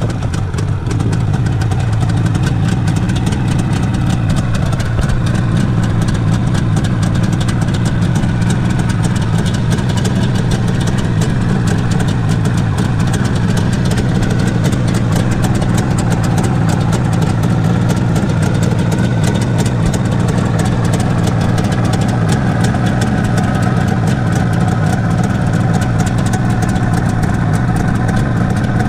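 1979 Suzuki GT550's air-cooled two-stroke three-cylinder engine idling steadily.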